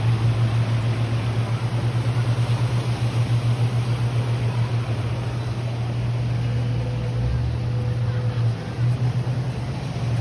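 Low, steady engine hum of a boat, pulsing quickly and evenly, with a brief dip and change in the pulse near the end.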